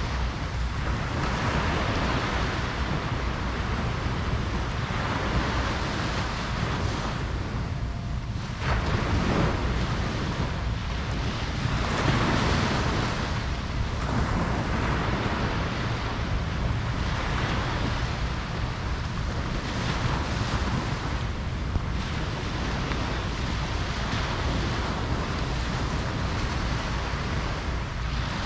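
Ocean surf breaking on a beach, a continuous wash of waves that swells and falls back every few seconds over a steady low rumble.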